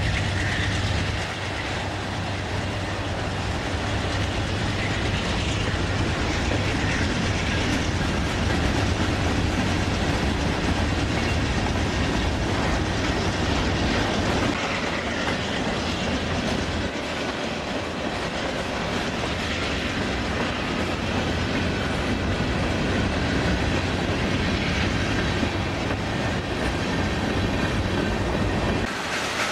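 Freight train rolling past: a diesel locomotive's low engine hum at first, fading within the first couple of seconds, then the steady rumble and clickety-clack of freight cars' wheels on the rails.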